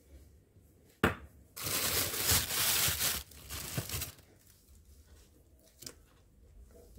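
Thin plastic bag rustling and crinkling as frozen chard rolls are handled inside it. There is a sharp click about a second in, a long stretch of rustling from about a second and a half in, and a shorter one near four seconds.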